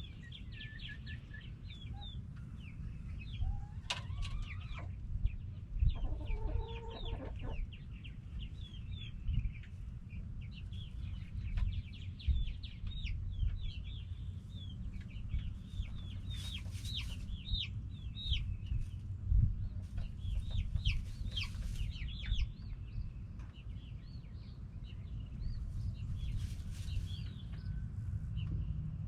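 Backyard hens clucking and chattering, a dense stream of short calls with a few longer calls among them, over a steady low rumble.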